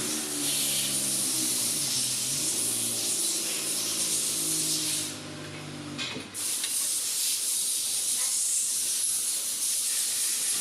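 A steady hiss, with a pitched hum that dips in pitch about two seconds in and stops about six seconds in.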